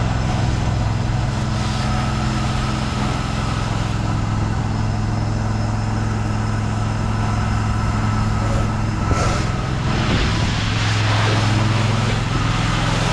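An engine running at a steady speed, with a constant hiss over it.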